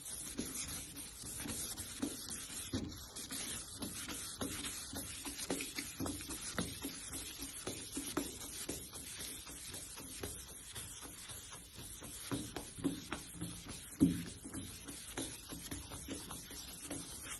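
Wet-and-dry sandpaper rubbed back and forth by hand over a car's painted body panel: irregular scratchy swishing strokes, wet sanding the paint down to take out mottling and dark spots so it is flat. One louder bump about fourteen seconds in.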